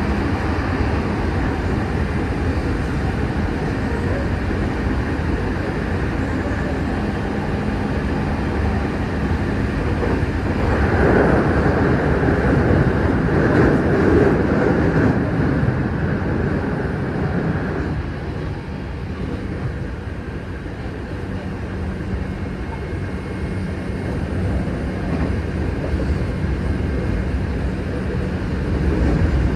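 Commuter train running between stations, heard from inside the car: a steady rumble of wheels on rail and running gear, swelling louder for a few seconds near the middle, then easing.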